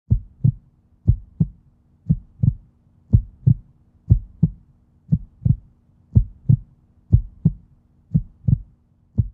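Heartbeat sound effect: paired low thumps, lub-dub, repeating steadily about once a second, over a faint steady hum.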